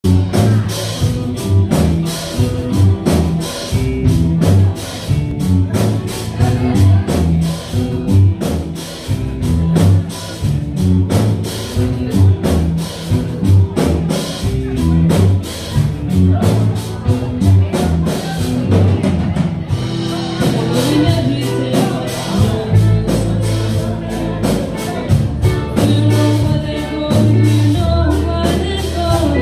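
A live rock band plays a song with drum kit, electric guitars and bass over a steady beat. About twenty seconds in, the drumming thins out and long, held bass notes come to the front.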